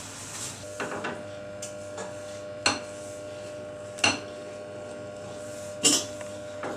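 A spoon stirs thick cake batter in a glass bowl and clinks sharply against the glass about four times, a second or two apart, each clink ringing briefly.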